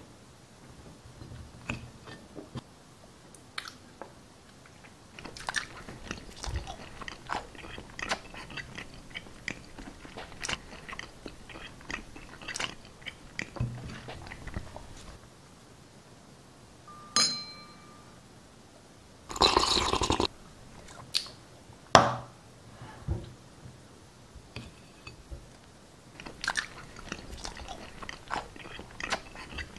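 Close-up mouth noises mimicking noisy eating: crackly, crunchy chewing and biting in a run of short irregular clicks. About two-thirds through there is a brief high squeak, then a louder noisy burst and a single sharp click.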